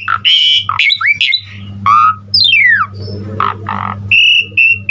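Pied starling (jalak suren) singing a fast, varied song of short clear whistles and harsh squawks, with one long falling whistle about halfway through.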